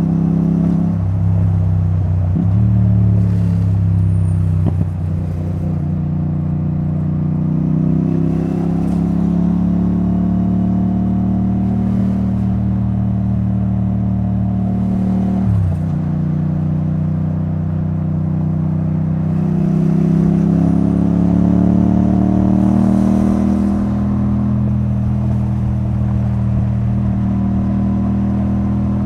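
Yamaha XSR700's parallel-twin engine through a debaffled Akrapovic titanium exhaust, running under way at road speed. The engine note drops abruptly about two seconds in and again near the middle, as at gear changes, then rises slowly as the bike pulls.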